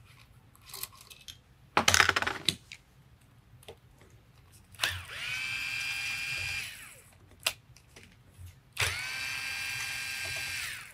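Cordless electric screwdriver running twice, about two seconds each, spinning up to a steady whine and winding down, backing out the scope rail screws on an air rifle. A short clatter about two seconds in is the loudest sound.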